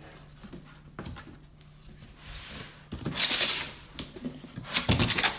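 Cardboard box and its packing being opened and handled: rubbing and scraping, louder in bursts about three seconds in and again near the end.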